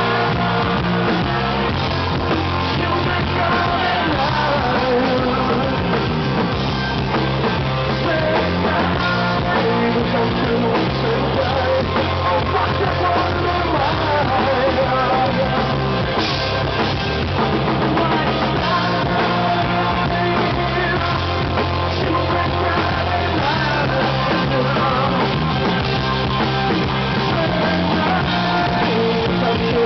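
Rock band playing live: electric guitars, bass guitar and drum kit, with a male singer singing over them.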